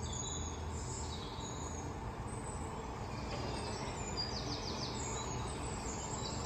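Quiet ambience of a large domed stadium: a steady low hum of the hall and the waiting audience, with faint short high chirps scattered through it.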